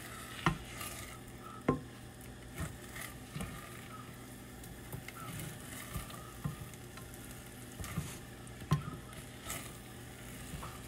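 Silicone spatula stirring and scraping scrambled eggs around a saucepan, with irregular soft knocks of the spatula against the pan and the eggs sizzling faintly underneath.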